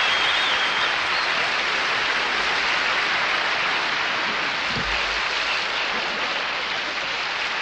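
Audience applauding steadily after an introduction, easing off slightly toward the end.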